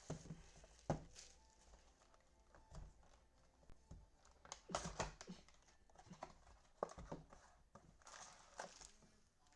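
Faint crinkling and tearing of plastic wrapper and packaging as a box of Prizm football cards and its packs are opened, with scattered light taps and clicks.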